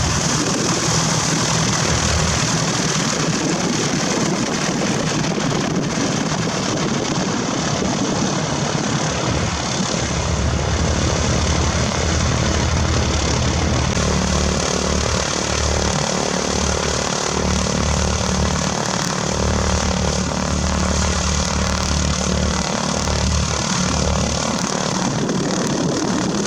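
A propeller aircraft's piston engine running steadily, a low drone under a broad rushing noise.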